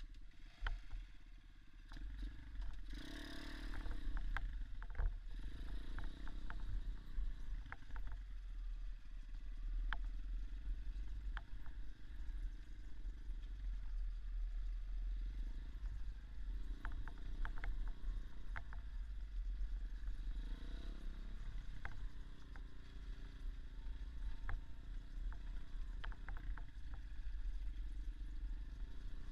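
Small Irbis dirt bike engine running while riding off-road, its pitch rising and falling as the throttle opens and closes. A deep steady rumble lies underneath, with frequent sharp knocks and rattles from the bike jolting over rough ground.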